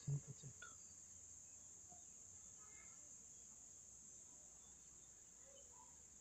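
Faint, steady high-pitched chorus of crickets, with a brief voice sound right at the start.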